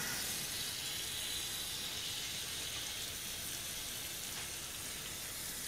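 Pot-au-feu sizzling and simmering in a small katsudon pan on a gas burner: a steady hiss that does not change as beaten egg is poured in.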